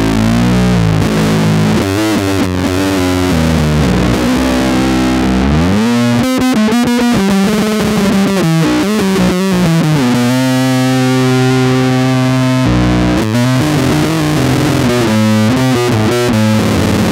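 Freshly strung four-string electric bass played fingerstyle in a fast metal riff: quick runs of notes, a slide up about six seconds in, and a note held for a couple of seconds around the middle.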